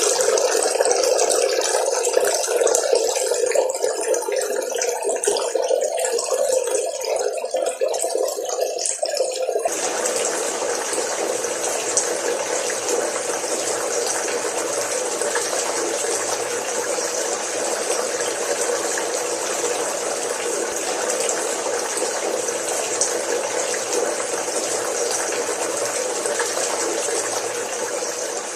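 Water running and splashing steadily in a small homemade cement waterfall fountain. About a third of the way in the sound changes abruptly to a brighter, hissier splash.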